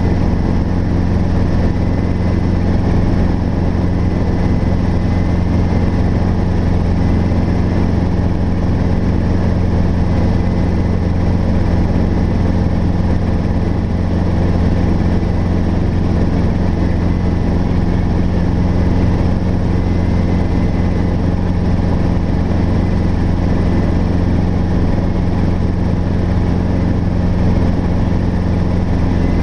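Robinson R22 helicopter in cruise flight, heard from inside the cockpit: its piston engine and rotors run steadily with an unchanging low hum.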